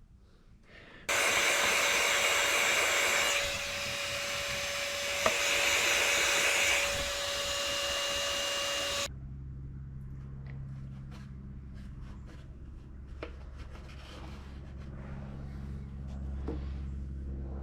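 A small electric motor with a fan, a blower like a hair dryer or heat gun, switched on about a second in, running steadily for about eight seconds and cutting off suddenly. A quieter low hum and a few faint clicks follow.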